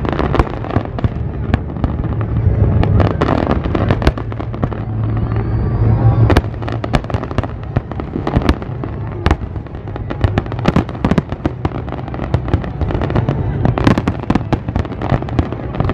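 Aerial fireworks display: many sharp bangs from bursting shells in quick, uneven succession, over a continuous low rumble.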